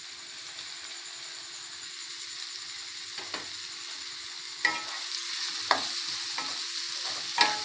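Button mushrooms sizzling in oil in a frying pan as they go in with the onion and tomato, with a spatula scraping and knocking against the pan as they are stirred, the knocks coming every second or so from about halfway through.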